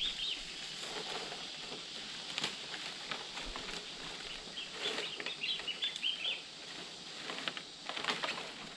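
Bamboo-grove ambience: small birds twittering in two short bursts, over a steady high insect hiss, with scattered rustles and crunches of leaves underfoot.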